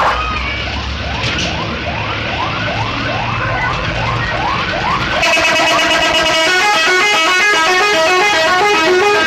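A bus's telolet horn, the multi-tone musical air horn fitted to Indonesian intercity buses, on an Agra Mas bus. It first plays a repeated swooping wail, about two to three swoops a second, over a low engine rumble. About five seconds in it switches to a fast melody of stepped horn notes.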